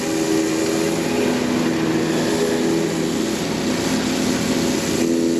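Stihl RB 400 gas pressure washer running steadily under load, its engine hum under the hiss of water spraying onto concrete from a surface cleaner.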